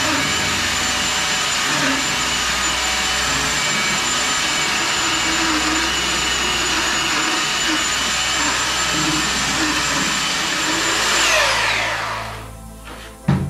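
Electric hand sander running steadily with a high whine as it sands a rough cedar picket. About 11 seconds in it is switched off and spins down with a falling whine, followed by a single knock near the end.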